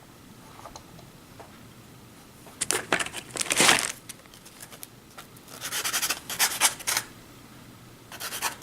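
Sandpaper rubbing quickly back and forth on a small plastic RC kit part to trim it down. It comes in three bursts of fast strokes: about two and a half seconds in, around six seconds, and again near the end.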